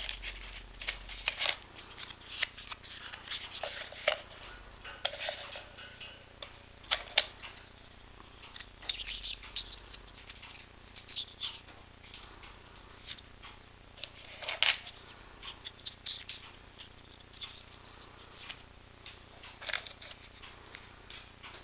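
Irregular small clicks, taps and rubbing of hard plastic as a Parkside PLS 48 D2 soldering station's clear spool cover and its solder spools are handled, lifted out and set down.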